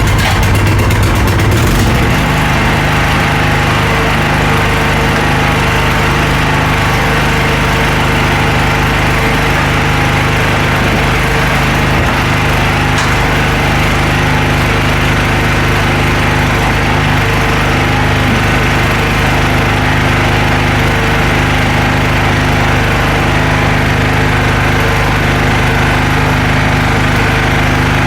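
Small generator engine running steadily at a constant speed.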